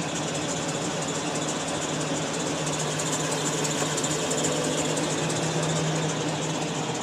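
A steady engine or motor hum, running evenly without change.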